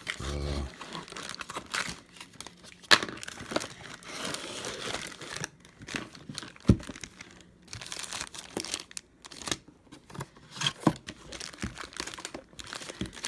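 Retail packaging of a Bluetooth speaker being handled and opened: irregular crinkling and tearing, broken by several sharp clicks and snaps.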